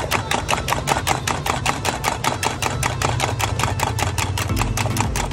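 Two raw eggs being beaten fast with a metal spoon in a steel mug: rapid, even clinking of the spoon against the mug, about seven or eight strikes a second, over a steady low hum.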